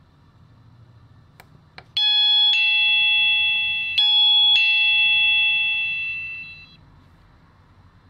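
Electronic doorbell chime through a small loudspeaker, playing its two-note ding-dong twice and then fading, triggered by presses of the bell push. Two faint button clicks come just before the first chime.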